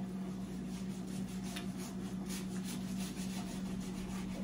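Soft chewing and crunching of crispy bánh xèo wrapped in lettuce and herbs, with a few faint crackles as leaves are handled, over a steady low hum.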